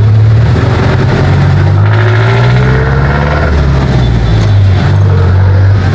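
Passenger jeepney's diesel engine heard from inside the cabin while under way. It accelerates, rising in pitch from about two seconds in, then eases off just past halfway and runs on steadily.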